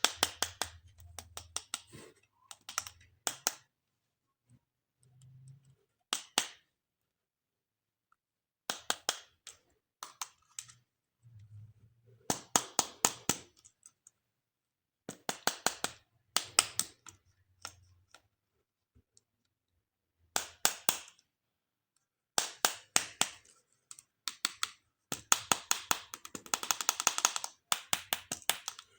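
Hands handling plastic toy parts and packaging: bursts of rapid sharp clicks and crackles with short pauses between them, the longest and densest run near the end.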